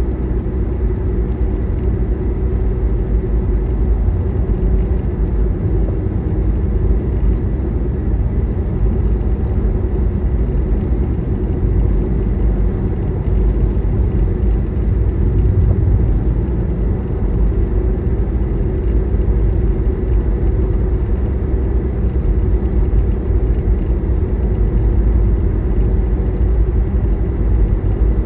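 Steady road noise of a car cruising at speed, heard from inside the cabin: a constant low rumble of tyres on asphalt with the engine's faint hum beneath it.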